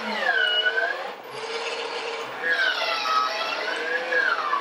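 Baby Brezza formula machine running its dispensing cycle: its motor whines, the pitch swooping down and back up in slow curves, as it measures formula powder into warm water and mixes it into the bottle.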